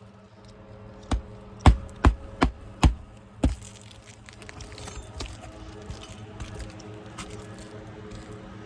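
Six sharp hammer blows in quick succession, about half a second apart, then a few faint light taps over a low steady hum.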